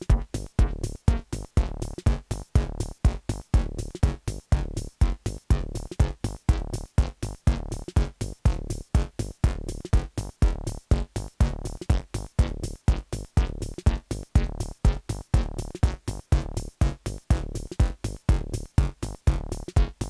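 Techno played live on hardware drum machines and analogue synthesizers: a steady, even kick-drum beat of about two hits a second under a repeating electronic pattern.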